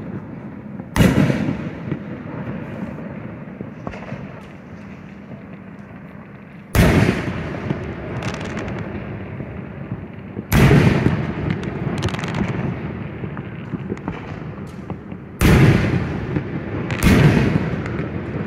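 Aerial firework shells bursting: five sharp booms, each trailing off in a long rumble, with fainter pops and crackles between them.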